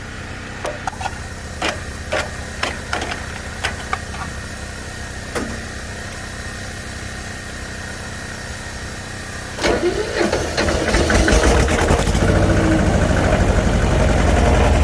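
Scattered clicks and knocks over a steady low hum, then about ten seconds in the farm tractor's engine cranks, catches and keeps running, loud and steady.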